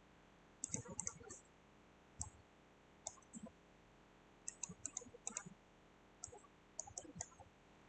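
Faint computer mouse clicks in small clusters of quick clicks, separated by short pauses.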